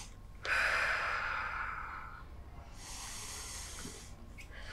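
Slow, deep breaths in and out, each about one and a half to two seconds long, taken as a paced calming breathing exercise.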